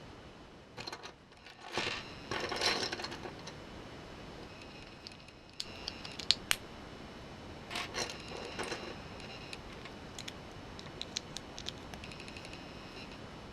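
Small hard plastic Lego pieces clattering and clicking as they are handled and fitted together, in short bursts of rattling with a few sharp single clicks.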